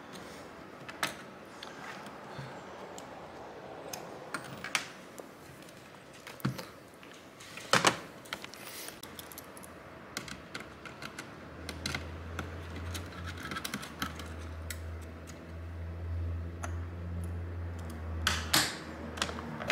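Scattered clicks, taps and light rattles of an Asus PN61 mini PC's motherboard and metal case being worked loose by hand, with a few sharper clicks, the loudest about eight seconds in. A low hum comes in about twelve seconds in and stops shortly before the end.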